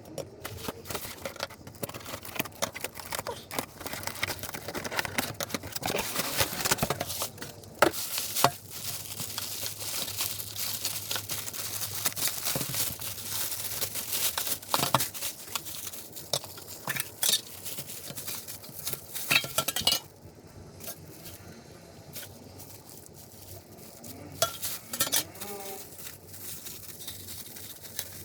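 Stirring and clinking against a small container, with scattered taps and scrapes; it goes quieter for a few seconds about two-thirds of the way through.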